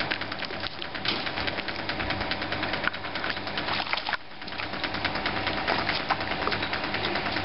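A dog paddling through swimming-pool water: splashing and rapid crackling over a steady hum. The sound drops and changes abruptly about four seconds in.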